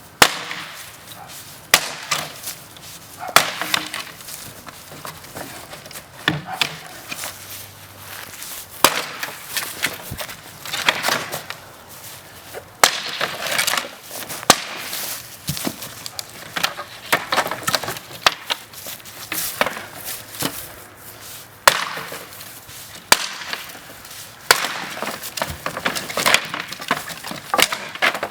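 Sledgehammer blows smashing a wooden pallet apart: a run of loud, irregular wooden cracks and bangs, about one a second, as the 2x4 stringers are broken and splintered to free the slats.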